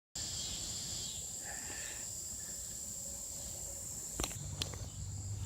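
Insects, crickets by the sound, trilling steadily at a high pitch, with two sharp clicks about four seconds in.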